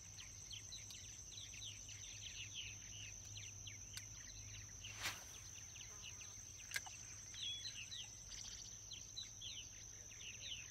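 Faint lakeside ambience of birds chirping, many quick short calls throughout, over a steady high thin whine, with a few sharp clicks near the middle.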